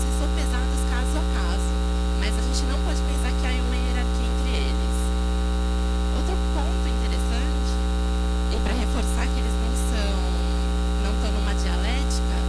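Loud, steady electrical mains hum running through the audio, a low buzzing drone with a ladder of overtones, over faint background chatter.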